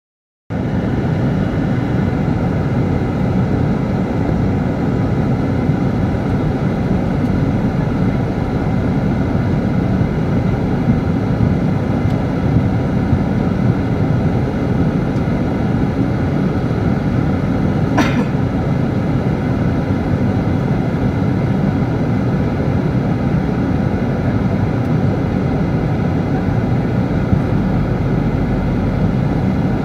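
Steady engine and cabin noise of an airliner moving on the ground, heard from inside the passenger cabin, with one brief click about halfway through.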